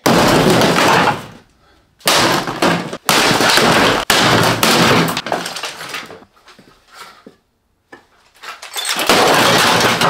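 Sledgehammers smashing a sheet-metal furnace apart: loud crashes and clatter of metal and breaking parts in several bursts, with sharp hammer blows in the middle and quieter gaps between.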